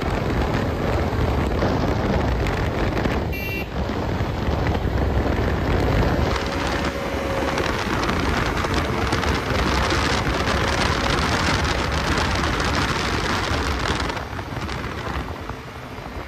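Wind rushing over the microphone with the road noise of a motorcycle ridden at speed, easing somewhat near the end.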